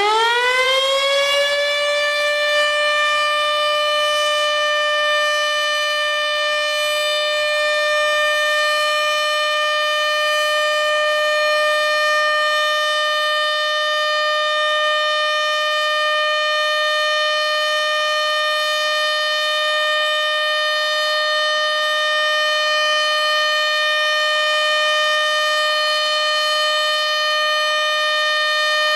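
American Signal OM-120 omnidirectional siren sounding its one-minute alert. It winds up in pitch over the first two seconds, then holds one steady tone with no rise and fall.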